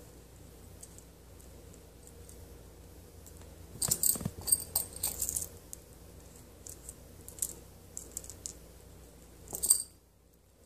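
Glass and metal beads and metal charms on a keychain cord clinking and rattling against each other as they are handled, in a cluster of sharp clinks about four seconds in, a few light ticks after, and a short burst of clinks near the end that cuts off suddenly.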